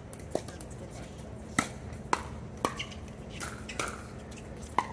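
Pickleball paddles striking a hard plastic ball: a series of about six sharp, hollow pops at uneven spacing, some half a second apart as in a rally.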